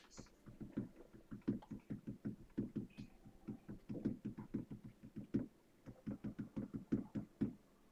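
Rapid light taps in uneven runs, about five or six a second with brief pauses, like typing on a keyboard.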